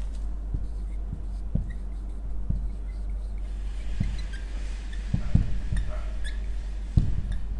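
Marker pen writing on a whiteboard: short squeaks and a scratching rasp as the strokes are drawn, heavier from about halfway through, with a few dull knocks. A steady low electrical hum runs underneath.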